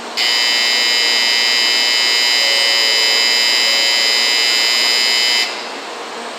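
Shinkansen platform departure buzzer sounding one steady, continuous tone for about five seconds, then cutting off suddenly. It signals that the train's doors are closing for departure.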